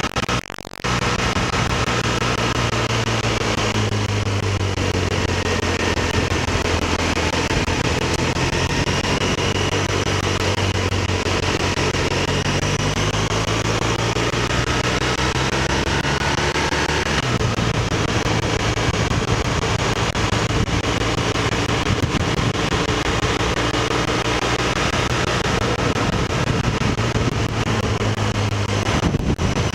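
BMW R1200RT's boxer twin engine running as the motorcycle rides along at low road speed, heard through a camera mounted on the bike with wind and road noise over it. The engine note shifts about halfway through, and the sound drops out briefly at the very start.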